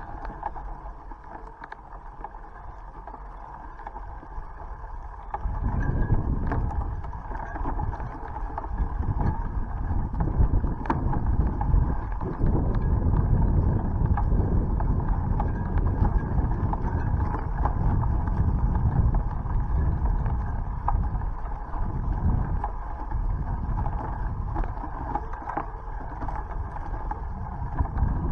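Wind buffeting the microphone of a camera riding on a moving bicycle: a low, gusty rumble that comes in about five seconds in. Under it is a steady whirr of the bike in motion.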